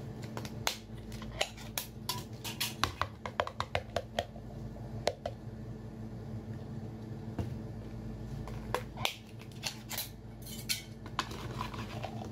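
Sharp clicks and taps while eating at a table: a quick run of about four a second over the first five seconds, then a few scattered ones. They come from mouth sounds of eating and glassware knocking on the plates.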